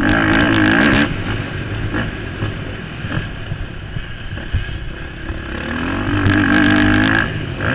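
Motocross bike engine heard from a helmet camera. It revs hard for about the first second, runs rougher and lower off the throttle, then revs up again from about six seconds in and cuts off a little after seven. Scattered sharp knocks sound over the engine.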